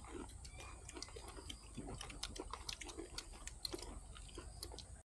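People eating with their hands: scattered small chewing and lip-smacking clicks over soft murmured voices, cutting off suddenly near the end.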